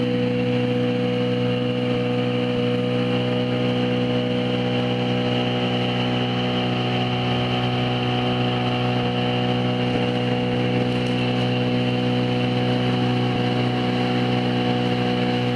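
Small motor boat's engine running steadily while the boat is under way: an even drone that holds the same speed throughout.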